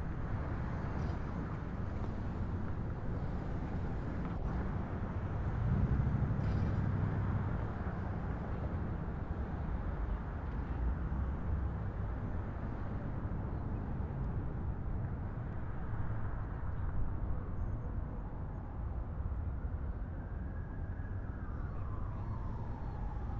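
New York City subway 2 train running, heard from inside the car: a steady low rumble and rattle of the car on the track. Near the end a motor whine falls in pitch over a few seconds.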